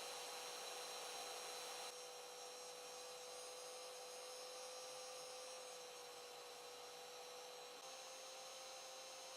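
Faint steady electrical hum over a light hiss, with a small shift in the hum about eight seconds in: room tone.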